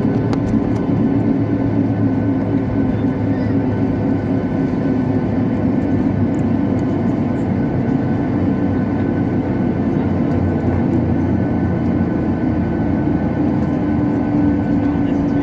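Steady hum and rush of a Boeing 737-800 heard from inside the passenger cabin, with a few constant low and mid hum tones over the noise of the engines and air system.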